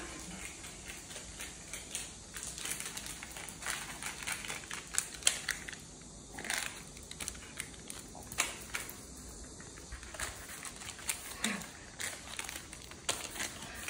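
Plastic wrapper of a dog chew crinkling and crackling in irregular taps as a small dog noses and paws at the unopened packet.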